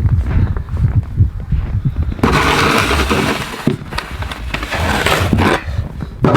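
Strong wind buffeting the microphone in a snowstorm, with two louder stretches of rushing hiss, one about two seconds in and a shorter one near the end.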